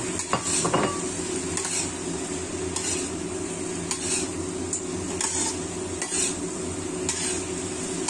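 Metal spatula scraping and stirring in a wok of sizzling sauce and fish, in short strokes about once a second, with a few clanks against the pan in the first second.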